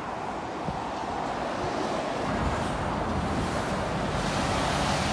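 Road traffic on a dual carriageway with an articulated lorry passing close below. Its low engine and tyre rumble builds steadily in the second half.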